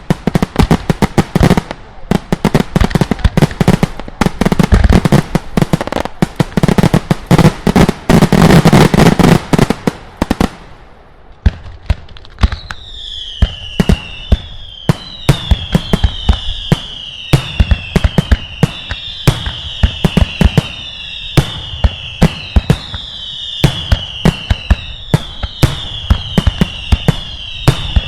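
Daylight fireworks: a dense barrage of rapid, loud bangs and crackling for about ten seconds. After a short lull comes a run of overlapping whistles, each falling in pitch, about one a second, with sharp bangs in between.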